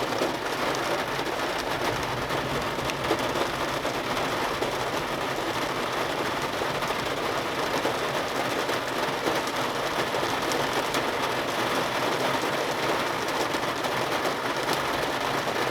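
Heavy rain falling steadily, a dense hiss with the patter of drops striking surfaces.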